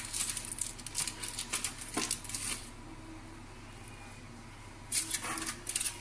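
Light clicking and clatter of kitchen dishes and utensils around a stainless steel serving tray: a quick run of clicks, a pause of about two seconds in the middle, then more clicks near the end.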